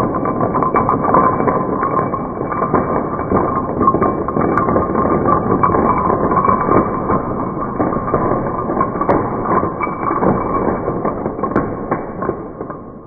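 A long chain of dominoes toppling and knocking into each other, slowed down so the clatter is stretched into a deep, continuous smear of low knocks.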